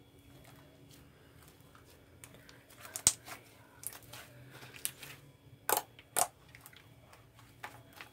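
White slime being squeezed and kneaded by hand, giving scattered wet clicks and pops, the loudest about three seconds in and two more close together around six seconds.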